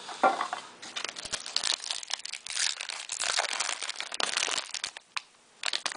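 Plastic wrapper of a trading-card pack crinkling and tearing as it is opened. The crackling is dense for about four seconds, stops, then comes back in two short crinkles near the end.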